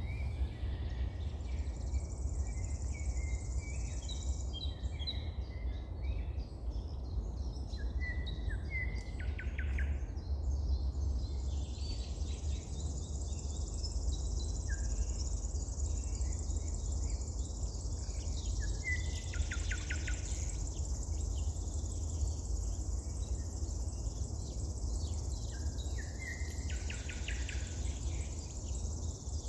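Wild birds singing short, varied phrases and trills every few seconds, over a steady high-pitched insect chirring and a constant low rumble.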